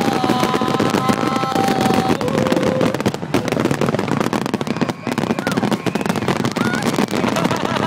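Aerial fireworks display: a dense, rapid crackling of many crackle-star shells bursting together, with a few held high tones in the first two seconds.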